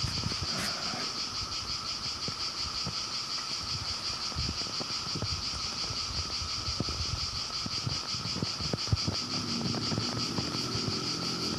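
Steady chorus of insects chirring in a fast, even pulse, with scattered soft low knocks beneath. A faint low pitched hum joins near the end.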